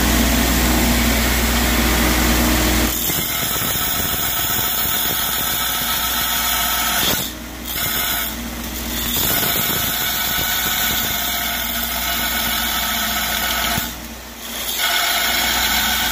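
Belt grinder running with a steel lawnmower-blade blank held against the belt, grinding down the rough-cut cleaver profile. The grinding is steady, with three short dips.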